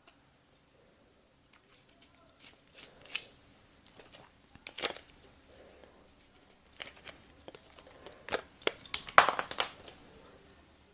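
Irregular small clicks, crinkles and scrapes of slime ingredients and plastic containers being handled while dish soap is added to the slime mixture, busier near the end.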